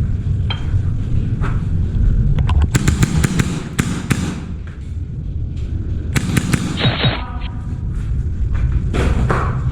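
Airsoft guns firing: scattered sharp snapping shots, a cluster about three to four seconds in and more just past six and near nine seconds, over a steady low rumble.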